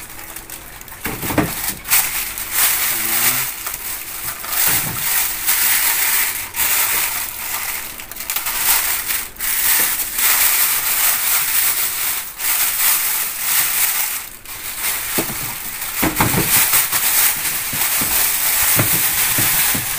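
Clear plastic bag wrapped around a speaker crinkling and crackling steadily as it is handled and pulled off, with a few dull bumps.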